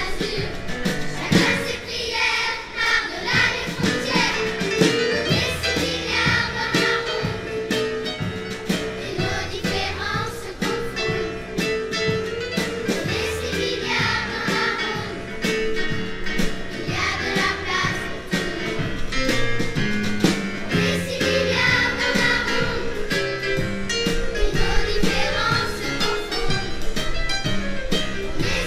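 A large children's choir singing a song in unison, over an accompaniment with a steady beat.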